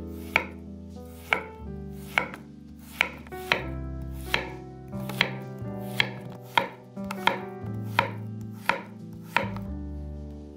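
Chef's knife slicing zucchini on a wooden cutting board: a crisp chop each time the blade goes through and hits the board, about thirteen cuts, a little under a second apart.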